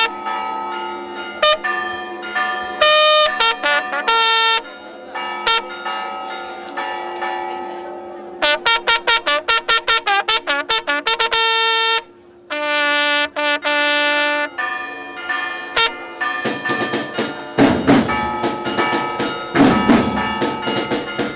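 A bugle plays short fanfare-style calls, with a fast run of repeated notes about halfway through. Drums join in near the end.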